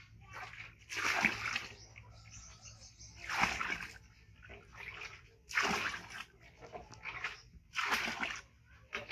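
Water splashed onto a monkey's fur during a bath: four splashes about two seconds apart, with softer splashes between them.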